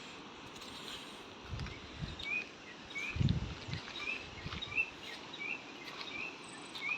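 A bird repeating a short, hooked chirp about once every half-second over steady outdoor background noise, with a few low thuds about one and a half and three seconds in.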